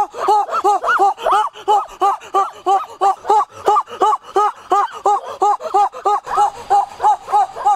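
An animal's rapid, evenly repeated yelping calls, about three or four a second, each note rising and falling in pitch.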